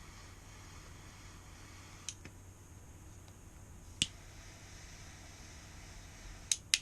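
A few sharp clicks over a faint steady hum: one about two seconds in with a weaker one just after, one at four seconds, and two close together near the end.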